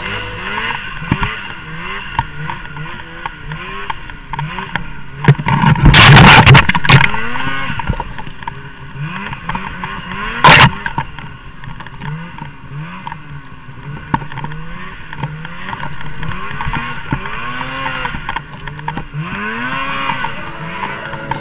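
2015 Polaris Pro RMK 600's two-stroke twin engine revving up and down over and over, about once a second, as the sled works through deep powder snow. There are two very loud bursts of noise, a longer one about six seconds in and a short one about ten and a half seconds in.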